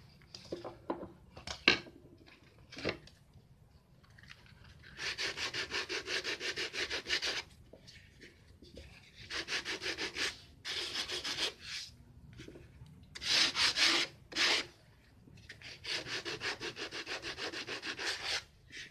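Plywood piston pattern rubbed by hand back and forth on sandpaper, being sanded smooth and flat. Several runs of quick, even strokes, about six a second, each run lasting a second or two, after a few sharp knocks in the first few seconds.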